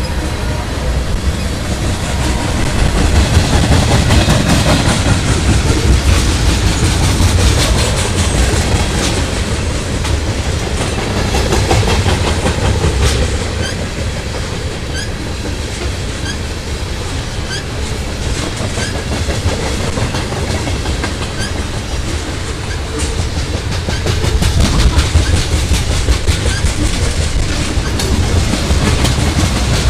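CSX freight train of tank cars rolling past: steel wheels click over rail joints above a constant low rumble, swelling louder twice.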